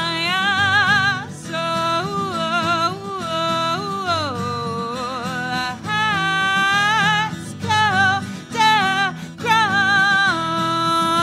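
A woman singing long held notes with a wide vibrato, over acoustic guitar accompaniment, in a live performance of a country-style song.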